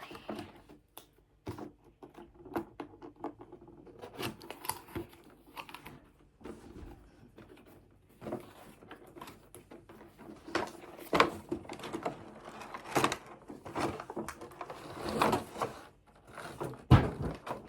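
A toy box and its packaging being opened and handled: irregular rustling, scraping and clicking, with a louder knock near the end.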